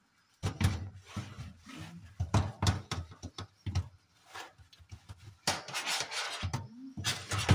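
A kitchen sponge's scouring pad scrubbing a metal mesh range-hood grease filter in a stainless steel sink, in quick, irregular strokes starting about half a second in. The strokes run together into a longer continuous stretch near the end.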